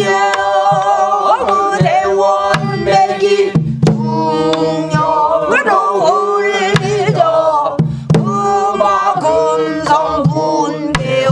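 A woman singing pansori, drawing out long, wavering melismatic notes, while beating a buk barrel drum with a stick; the drum strokes are sparse and irregular.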